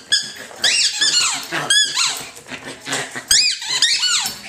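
Squeaky toy being chewed by a fox terrier puppy, squeaking over and over in quick runs of short squeaks that rise and fall in pitch.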